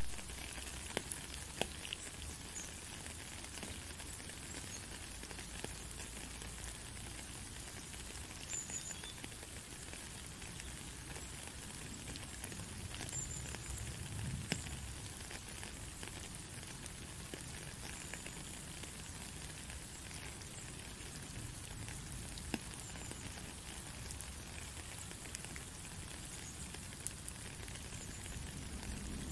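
Steady rain falling into a puddle on a gravel path: an even hiss with scattered drop splashes and taps. It opens with a single sharp click.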